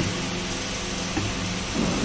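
Rotary bottle turntable running, its drive motor giving a steady hum under an even whirring hiss, with a light knock about a second in as a plastic bottle is set down on the steel plate.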